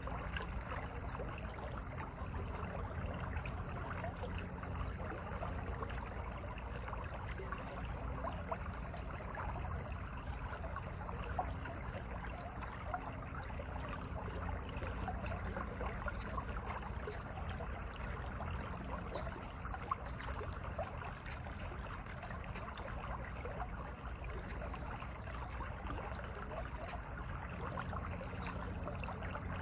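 Mountain valley stream flowing steadily, a continuous rushing, burbling water sound.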